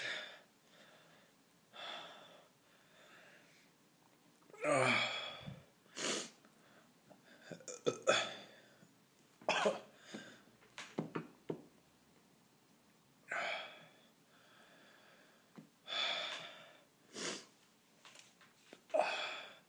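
A man breathing hard and in pain from the burn of a Carolina Reaper pepper: short, sharp breaths at irregular intervals, with a louder voiced groan about five seconds in.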